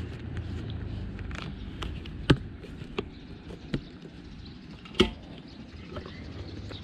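A few sharp clicks and taps from handling a plastic additive bottle and a motorcycle's fuel-tank filler cap, four in all, the loudest about five seconds in, over a low steady background rumble.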